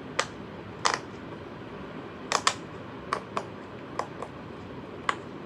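A handheld fidget toy pressed over and over, giving sharp, separate clicks or pops at an irregular pace, about two a second.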